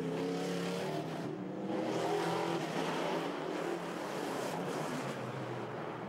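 Racing stock car's big American engine, about 500 hp, running hard at high revs, its pitch rising and falling as the car is driven through the corners.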